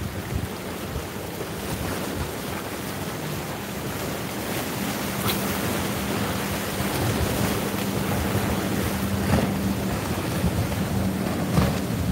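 Wind buffeting the microphone over waves washing against jetty rocks, with the steady low hum of passing boat motors underneath, growing a little louder after a few seconds.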